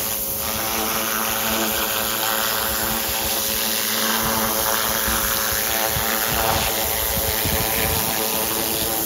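Pressure washer running steadily, its turbo nozzle spraying water onto concrete landscape edging stones.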